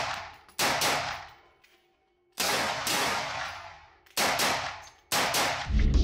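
Smith & Wesson M&P15T 5.56 NATO carbine fired shot by shot, four sharp reports at uneven spacing, each with a long echoing tail. Music comes in near the end.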